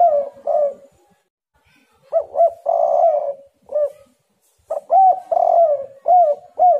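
Spotted dove (tekukur) cooing its song in repeated phrases. Each phrase has short hooting notes around a longer, rolling middle coo. One phrase ends about a second in, a full one follows, and a third is cut off at the end.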